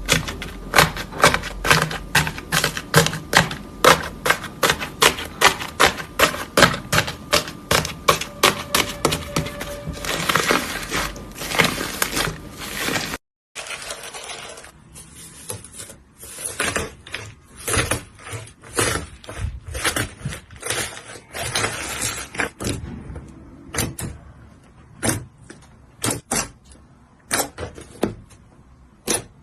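Slime being squeezed and worked by hand, giving crisp popping clicks about two to three a second. After a brief break about halfway through, the pops come slower and more irregular.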